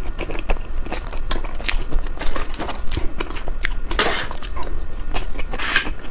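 Close-up chewing and biting of ice cream: irregular sharp mouth clicks, with two longer noisy crunching sounds about four seconds in and near the end.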